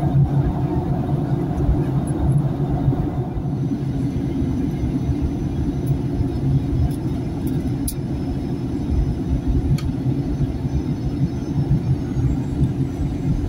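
Steady cabin noise of a Boeing 737-900 in flight, heard at a window seat over the wing: the rumble of its CFM56-7B turbofan engines and the airflow, with the aircraft on its descent toward landing.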